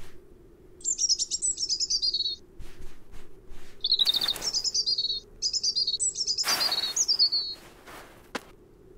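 Cartoon bird chirping at the cat in three runs of rapid, high twittering chirps, with two short loud swishing noises in the middle.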